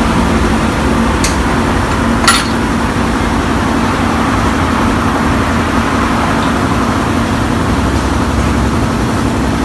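Steady mechanical running noise with a constant low hum. Two sharp clicks come about a second and about two seconds in.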